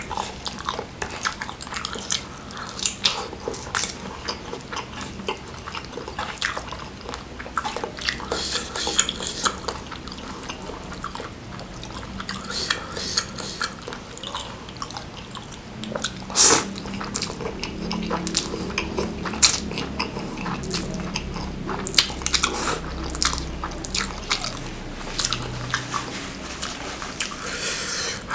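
A person chewing and eating noodles and meatballs close to the microphone: a steady run of irregular wet mouth clicks and smacks, with a few louder ones.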